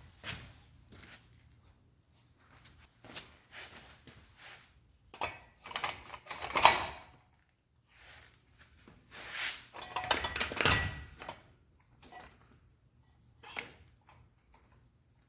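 Small parts being handled and fitted on a workbench: irregular clicks, taps and short rattles, with two longer bursts of clatter around the middle.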